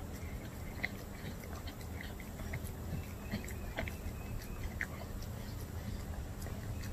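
Dog licking and chewing canned wet dog food from a bowl: irregular wet smacks, laps and clicks of tongue and teeth, as it licks the bowl clean.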